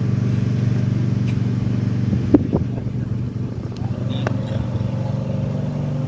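A steady low machine hum, as from an engine or motor running at constant speed, with a sharp click about two seconds in.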